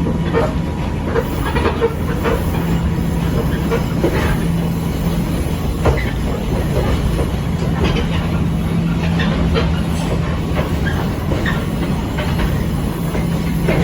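Echizen Railway 5001-series electric railcar running along the track, heard from inside the car: a steady rumble of wheels on rail with a constant low hum, and scattered clicks and knocks from the track and bodywork.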